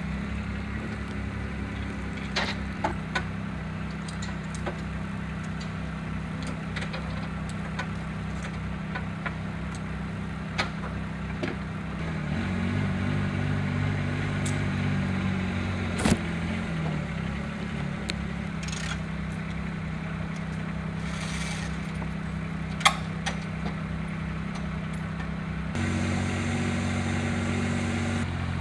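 Diesel engine of a tracked spider lift running steadily, its note changing about twelve seconds in and again near the end, with a few sharp clicks and knocks over it.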